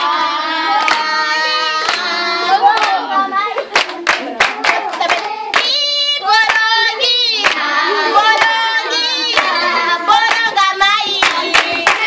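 A group of children and young women singing a song together and clapping their hands along to it.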